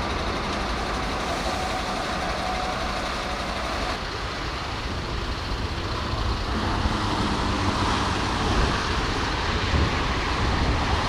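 Steady motorway traffic noise of vehicles and lorry engines passing on the autobahn. About four seconds in, the sound changes to a heavier, lower road and engine noise.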